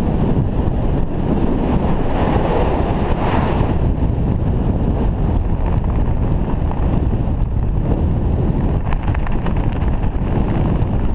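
Wind buffeting the camera's microphone during a descent under an open ram-air parachute: a steady rushing noise, heaviest in the low end, thinning slightly after about four seconds.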